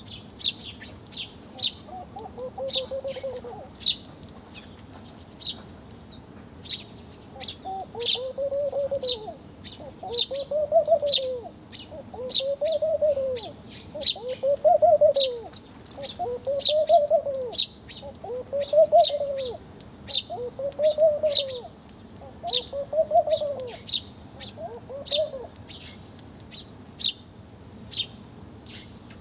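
Small birds chirping in quick, high notes, with a lower call that rises and falls repeated about every two seconds through most of the stretch.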